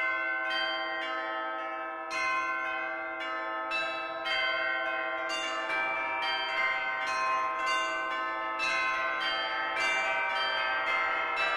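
Church bells pealing: a steady sequence of strikes, about two a second, each one ringing on under the next.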